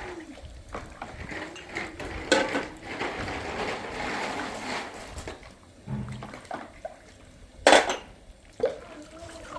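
Clatter of dishes and utensils, with a stretch of running or pouring water after a clatter early on, and a sharp knock about three-quarters of the way through.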